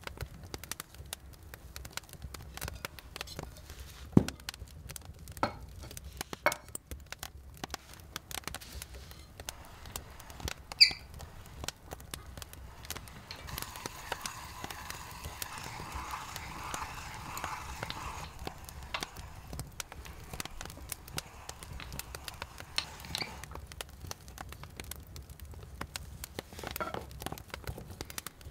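Close handling sounds: scattered light taps and clicks, one sharp ringing clink about eleven seconds in, and a few seconds of steady rustling noise in the middle.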